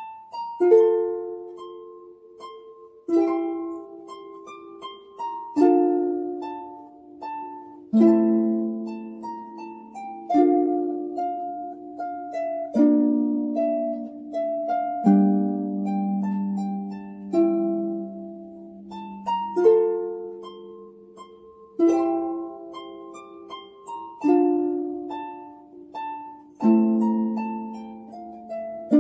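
Harp played by hand in a slow piece: plucked chords under a melody, a new chord struck about every two and a half seconds and left to ring and fade.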